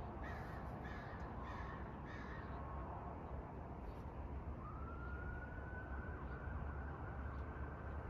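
Hampton Bay Carousel 2 ceiling fan running with a steady low hum. Over it, a bird calls four times in the first two seconds. About halfway through, a single high tone comes in with a slight rise and then holds.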